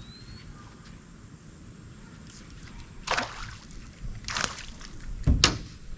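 Water splashing three times, about a second apart, the last splash the loudest.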